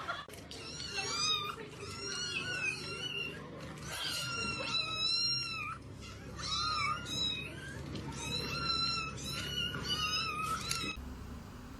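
A cat meowing over and over in a string of high-pitched, drawn-out meows, some bending up and down in pitch; the calls stop abruptly near the end.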